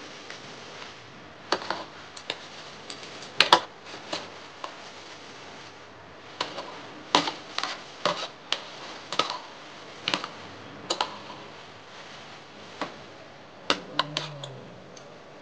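Metal spoon and fork clinking and scraping against a ceramic plate while eating, in a run of irregular sharp clinks with a short lull shortly before the end.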